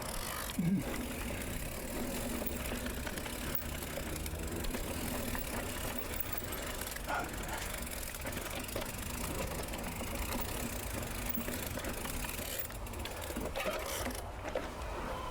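Mountain bike rolling down a dirt singletrack, a steady rushing rolling noise with a low rumble and a short knock about half a second in.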